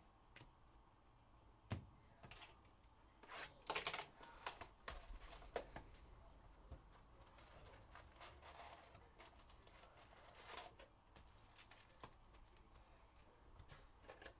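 Faint clicks and rustles of trading cards being handled and foil-wrapped card packs being pulled from a box and stacked, with a busier patch of rustling about four seconds in.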